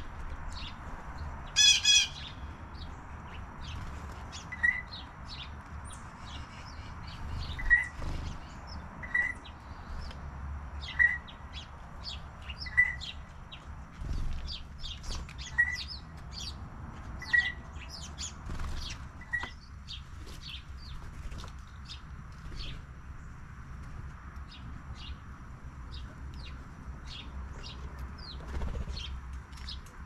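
Small songbirds, house sparrows among them, chirping with many short high chirps throughout. A loud, harsh call comes about two seconds in, and a short lower note repeats about every two seconds until a little before the middle.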